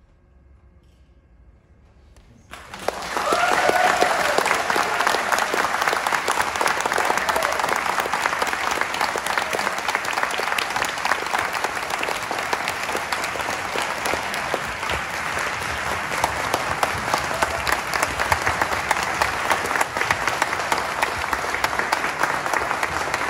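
A quiet pause after the orchestra's last note, then a concert audience bursts into loud, sustained applause about two and a half seconds in.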